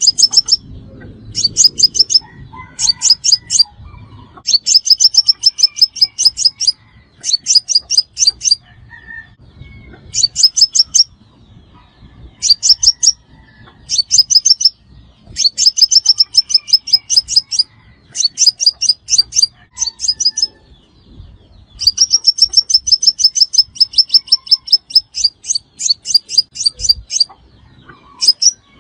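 Crimson sunbird calling: loud bursts of rapid, sharp, high notes in quick even series, each burst lasting from about half a second to two seconds, repeated after short pauses.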